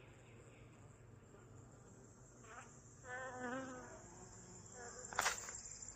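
Steady high-pitched chirring of crickets, with a door hinge creaking in a short wavering squeak about three seconds in, then a sharp click near the end.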